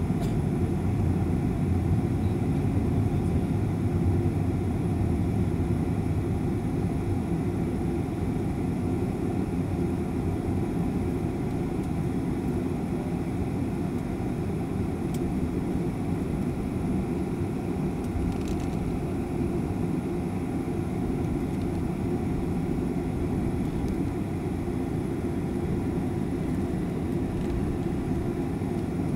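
Steady low rumble of a jet airliner's engines, even and unbroken, easing slightly in level over the first few seconds.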